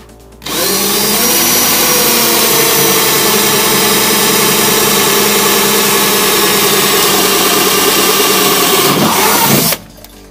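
Electric drill boring through the car's rusty floor sheet metal, running steadily for about nine seconds after a brief rise in pitch as it spins up, then stopping. It is making a hole to drain rainwater trapped inside the body.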